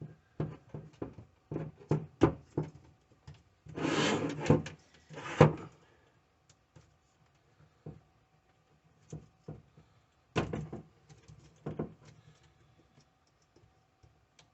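Scattered clicks, taps and knocks of a Chromebook's plastic screen parts being handled and worked on, with a brief scraping rustle about four seconds in and a sharp knock about a second later.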